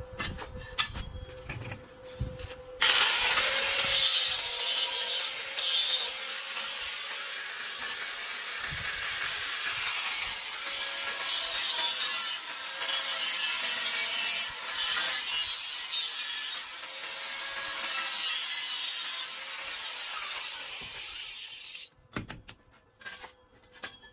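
Handheld electric angle grinder with its abrasive disc cutting into thin-walled steel square tubing. The harsh grinding starts about three seconds in and rises and falls with the pressure of the cut, stopping shortly before the end. A few clicks of the metal tubes being handled come before and after it.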